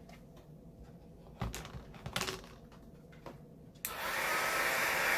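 A few soft knocks from handling, then about four seconds in a small embossing heat gun switches on and runs with a steady blowing hiss.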